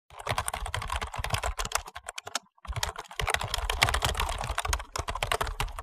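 Rapid keyboard-typing sound effect, a dense run of clicks that pauses briefly about two seconds in and then carries on.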